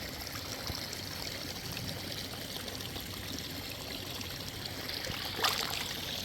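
Natural hot-spring mineral water running and pouring steadily, with one short louder burst about five and a half seconds in.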